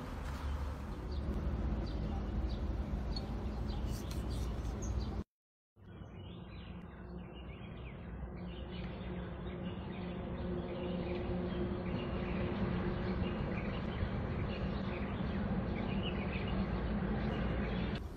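Birds chirping over a steady low outdoor rumble with a faint hum. About five seconds in the sound cuts out completely for half a second, then comes back duller, with the chirps fainter.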